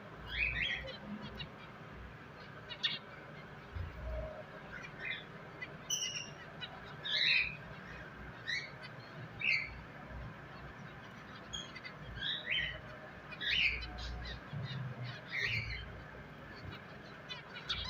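Pet finches chirping: short, sharp calls in an irregular string, roughly one a second, over a low rumble at times.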